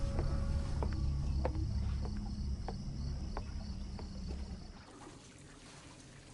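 Night ambience of crickets, a steady high chirring, over a low rumble that fades away about five seconds in.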